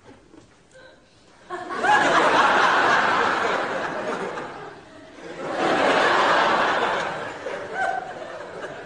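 Studio audience laughing in two waves: a burst about a second and a half in that dies down, then a second rise about halfway through that fades near the end.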